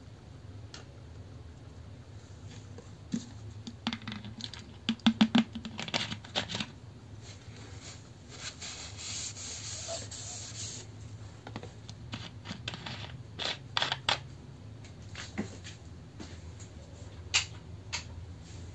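Clicks and taps of a soda-can alcohol stove and a plastic bottle cap being handled on a desk, then a tissue rubbing across the desktop with a rasping scratch for a few seconds, followed by a few more scattered clicks and a single sharp click near the end.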